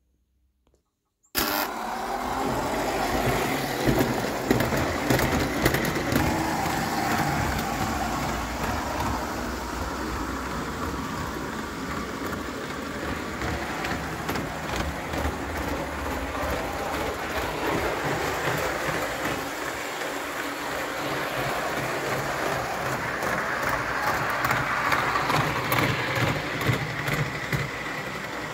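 Pre-war Lionel M10000 O-gauge tinplate streamline toy train running steadily on its track: motor and wheel noise with many small clicks, starting abruptly about a second in.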